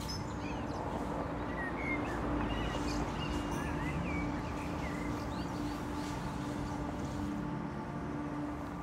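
Birds chirping in short high calls, mostly in the first half, over a steady background of distant city noise with a low hum.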